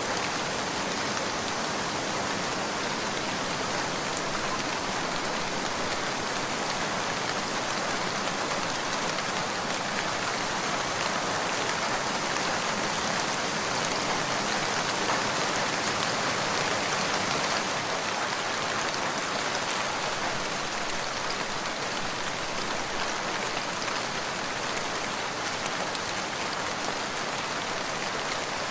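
Steady rain falling, an even hiss of drops that swells slightly about halfway through.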